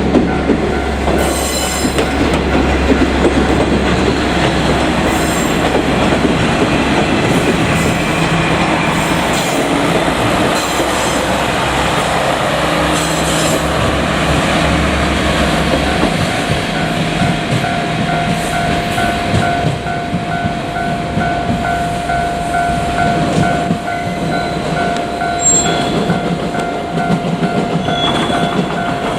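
Japanese level crossing alarm ringing steadily as trains run over the crossing, wheels clattering over the rail joints. A low steady rumble under the train noise stops about halfway through.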